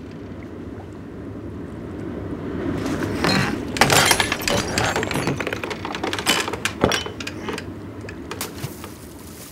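A burst of knocks, thumps and glassy clinks of things banging about in a wooden rowboat, starting about three seconds in and running for several seconds, loudest near the start, over a low steady rumble of sea and wind.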